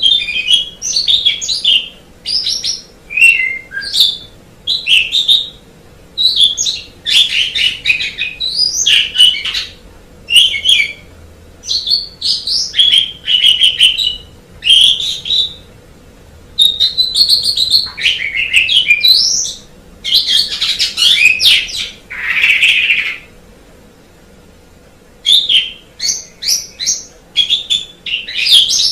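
Asian pied starling singing: rapid phrases of chattering whistles mixed with harsh, rasping notes, broken by short pauses, with one longer pause near the end.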